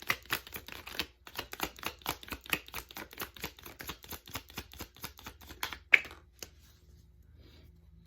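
Tarot cards being shuffled by hand: a quick run of papery card snaps, about seven a second, ending with one sharper slap about six seconds in.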